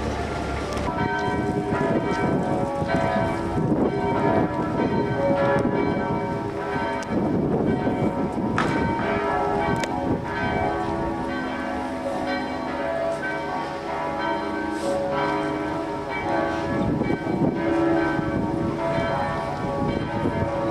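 Church bells ringing for a funeral, several bells sounding together with long, overlapping ringing tones, starting about a second in, over a rushing background noise.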